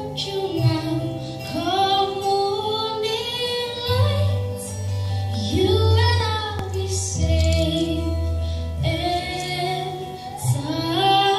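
A young woman's solo voice singing into a handheld microphone, with long held notes and gliding phrases, over instrumental accompaniment with sustained low bass notes.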